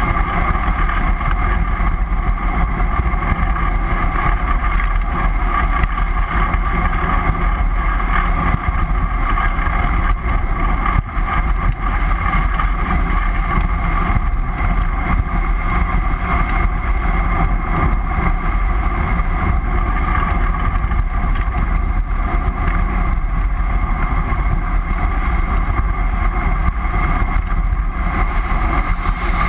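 Steady wind rush buffeting a GoPro's microphone as a bicycle descends a mountain road at speed, a constant roar with a low rumble.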